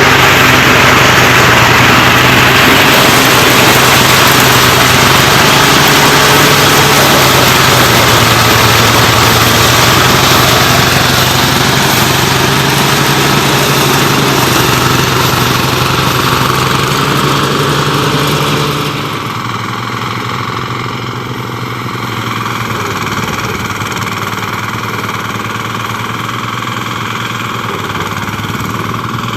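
The engine of rice-harvesting machinery running steadily under load. About two-thirds of the way through it becomes quieter and duller.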